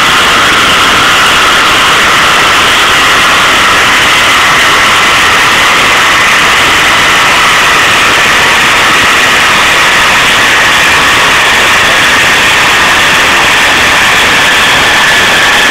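Steady, very loud mechanical rush of a chassis-dynamometer cell, with the car on the rollers and the dyno running. A faint tone in it drifts slightly lower toward the end, and there is no rising rev sweep. The sound is pinned near full scale.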